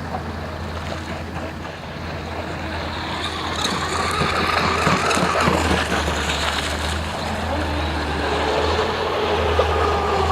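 Joysway US 1 V3 RC catamaran's brushless motor running on the water, its whine rising and falling in pitch with the throttle.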